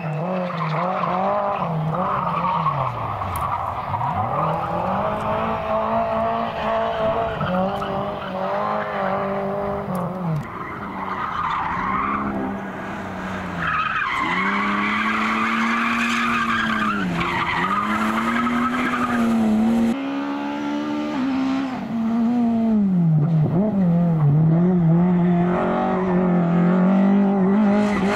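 Rally car engine at high revs, its pitch dropping and climbing again several times as the driver lifts off and shifts through corners. Tyres squeal and skid.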